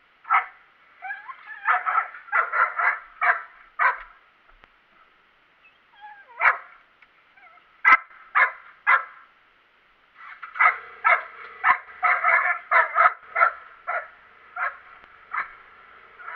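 A dog yipping and barking in quick short calls, in three runs with brief pauses between them.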